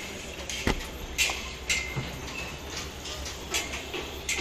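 Scattered sharp knocks and clinks of hand work on a construction site, a few with a short ringing tail, over a steady low rumble.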